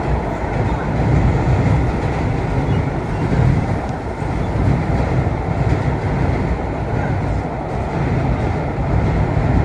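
Vintage 1930s R1/9 New York City subway car running underground, heard from inside the car: a steady, loud rumble and rattle of wheels and running gear on the track.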